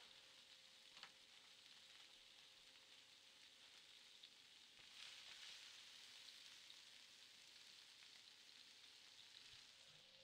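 Near silence: a faint steady hiss that swells slightly about halfway through.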